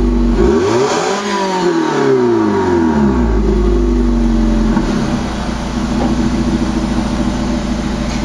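Nissan Serena's 2.0-litre four-cylinder engine revved once through an IMPUL Blast II aftermarket muffler, heard at the tailpipe. The pitch rises to a peak about a second in, falls back over the next two seconds, then settles into a steady idle.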